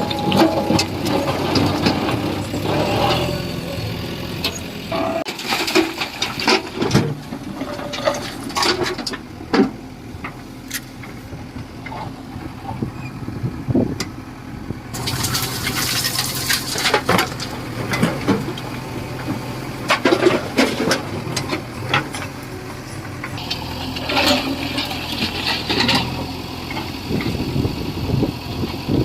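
JCB 3DX backhoe loader working, its diesel engine running steadily under many sharp clattering knocks of stone, with a loud rushing burst about halfway through and again near the end.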